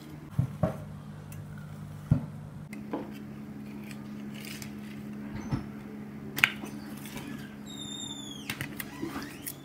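A metal knife and a slotted steel spatula click and scrape against a shallow steel pan while set agar (China grass) jelly is cut and lifted out in cubes. There are a few sharp taps, the loudest about two and six seconds in, and a brief high squeak that falls in pitch near the end. A steady low hum runs underneath.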